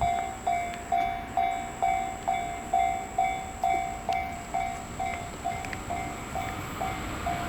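Railway level crossing warning bell ringing in an even, steady rhythm of about two strikes a second, each strike a clear ringing tone that decays, the strikes growing fainter toward the end.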